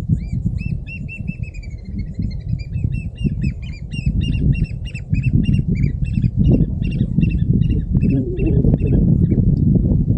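A bird calling a long run of short, clear, down-slurred whistled notes that speed up after a few seconds, over a steady low rumble.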